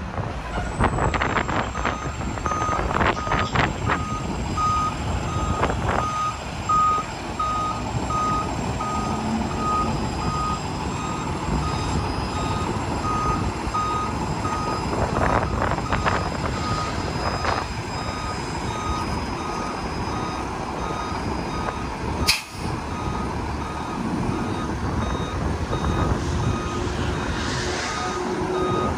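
Backup-style warning alarm on a 2012 Peterbilt 320 Heil side-loader garbage truck beeping steadily while the body is tipped up to dump, over the truck's diesel running. There is one sharp click about three-quarters of the way through.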